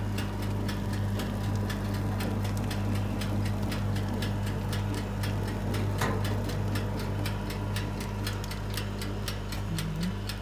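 Electric oven humming steadily, with a fast, even ticking of about three ticks a second from its mechanical timer.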